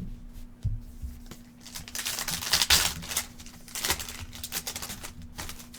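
Trading cards being handled: a run of light clicks and rustles as cards are slid and flipped, with a louder crinkling stretch near the middle. A faint steady hum runs underneath.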